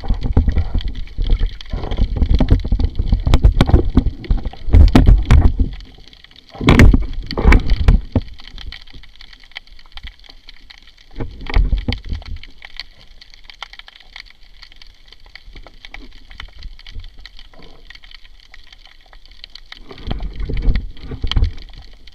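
Sea water sloshing and gurgling around a freediver's camera, with heavy rumbling swells of movement and scattered clicks. The loudest bursts fall in the first eight seconds, with quieter stretches after and another surge near the end.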